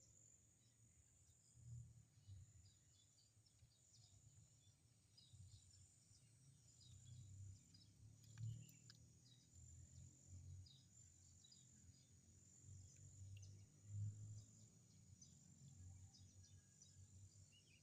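Faint outdoor insect chirring: a steady high trill that pulses on and off in runs, with scattered short chirps and a few low dull thuds, the loudest about halfway through and again near the end.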